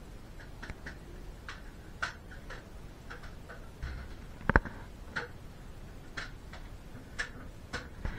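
Irregular light clicks and knocks inside a historic railway carriage over a faint low rumble, roughly one or two a second, with one sharper, louder clack about halfway through.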